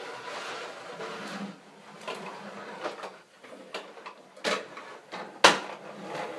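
Plastic toy trucks pushed and knocked about on a wooden floor: a rolling scrape at first, then a series of knocks and clacks, the loudest a sharp clack about five and a half seconds in.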